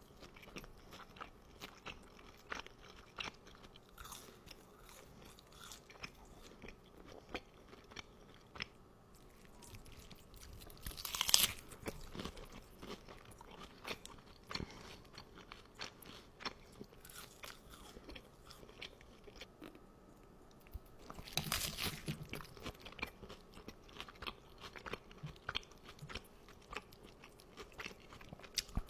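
Close-miked eating: a steady run of small wet chewing clicks and crunches. A louder crunchy bite comes about 11 seconds in, and another spell of loud crunching a little after 21 seconds.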